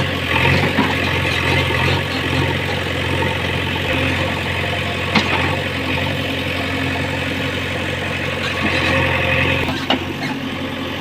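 Diesel engine of a JCB 3DX backhoe loader running steadily, with a sharp click about five seconds in and another near the end.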